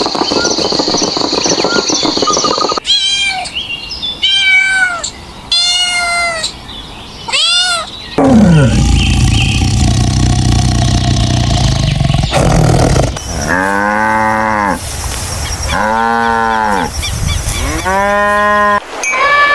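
A run of different animals calling, one clip after another: four short, high calls that rise and fall, then a long low call that drops in pitch, then three drawn-out calls lower in pitch.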